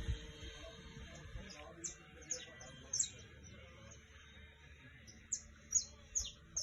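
Small birds chirping: a string of short, high-pitched chirps that each sweep downward, coming in two clusters, one a couple of seconds in and one near the end.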